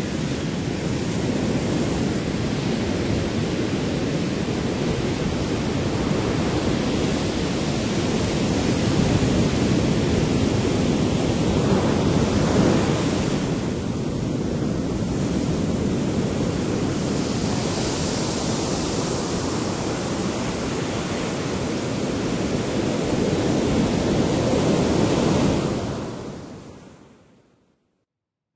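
Ocean surf and wind buffeting the microphone: a steady rushing wash that swells slightly in the middle and fades out to silence near the end.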